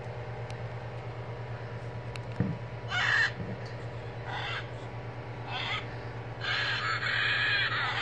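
Wild Republic Audubon plush macaws' built-in sound chips playing recorded macaw squawks as the toys are squeezed: three short harsh calls, then a longer run of squawks from about six and a half seconds in.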